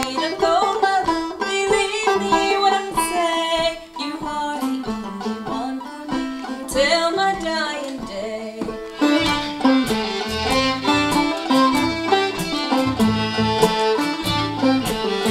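Old-time string band playing: clawhammer banjo, fiddle, acoustic guitar and upright bass, with a woman singing over them in the first part. From about nine seconds in the playing turns busier, with quick, even banjo notes.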